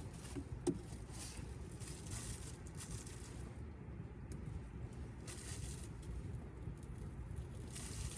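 Wind buffeting the microphone in a steady low rumble, with bursts of rustling and one sharp click a little under a second in.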